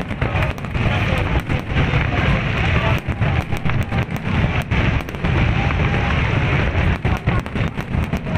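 Large fireworks display: continuous deep booming of aerial shells mixed with the dense crackle of glittering bursts.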